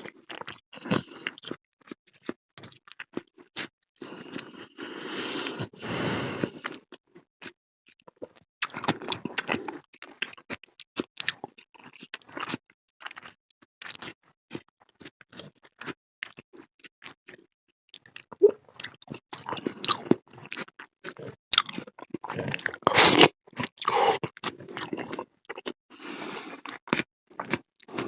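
Chewing and crunching of a fruit salad topped with cheese, with wet bites and occasional scraping, in irregular clicks and short bursts.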